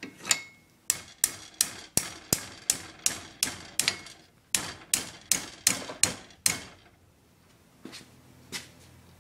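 Hammer blows on metal, a quick run of about sixteen sharp strikes at about three a second that stops about two-thirds of the way through, then two lighter knocks. The hammering works at a stuck bushing in the block of an old Maytag gas engine.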